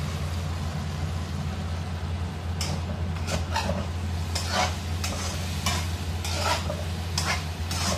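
Spatula scraping and stirring peas and meat in a stainless steel wok over a steady frying sizzle and low hum. A run of scrapes starts about two and a half seconds in, one every half second or so.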